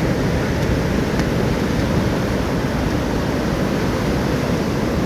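Steady rushing noise of wind and sea surf at the coast, even in level with no distinct events.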